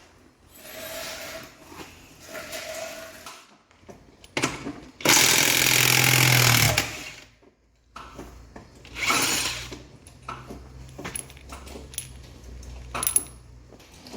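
Power tool running in one loud burst of about two seconds, with scattered metal clicks and clanks before and after it.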